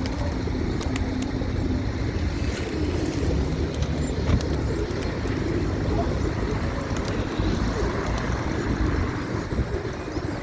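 Pigeons cooing over the steady rumble of road traffic.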